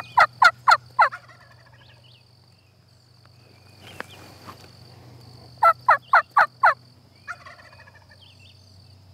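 Wild turkey gobbler gobbling twice, each gobble a rapid run of five or six loud notes, the second coming about five seconds after the first.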